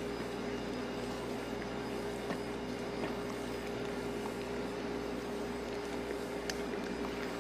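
Eggs, cream and onion mixture being stirred by hand in a stainless steel bowl, faint wet squishes and a few light clicks against the metal, over a steady low machine hum.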